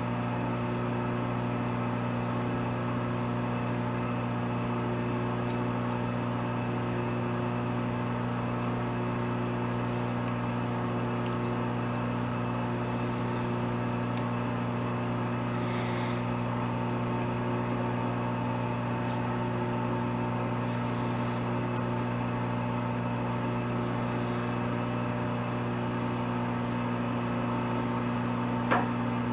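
Steady electric hum of running shop machinery, one even pitch throughout, with a single sharp knock near the end.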